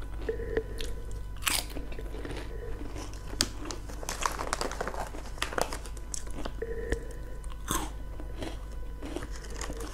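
Crunchy snack chips being bitten and chewed close to a mini microphone: irregular sharp crunches with chewing between them.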